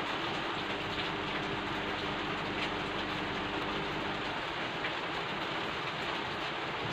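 Steady rain falling, an even hiss with scattered drop sounds. A faint low hum sits under it for the first four seconds or so.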